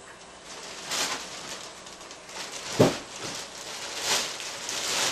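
Rustling of a bag being rummaged through, in swells, with one sharp thump just under three seconds in.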